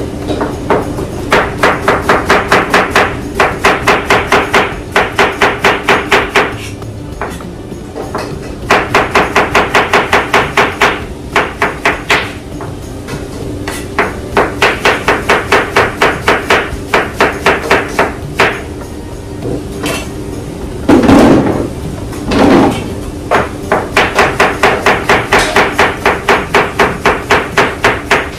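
Rapid knife chopping on a cutting board, about five to six strokes a second, in runs of several seconds with short pauses, while ingredients are cut for a sauce. A couple of heavier knocks come about three-quarters of the way through.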